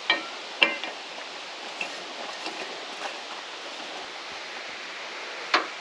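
A propane cylinder being handled and fitted to a two-burner camp stove. There are two short metallic clinks about half a second apart at the start and a sharper knock near the end, over a steady rushing background noise.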